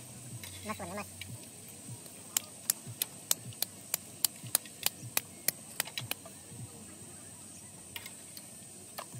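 Roti dough being patted flat between the palms: a run of about a dozen sharp pats at roughly three a second, stopping about six seconds in.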